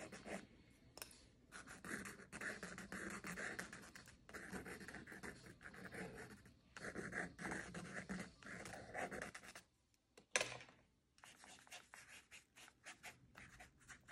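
Paintbrush bristles brushing and scratching across sketchbook paper through paint, in runs of strokes a second or two long with short pauses. A single sharp tap about ten seconds in.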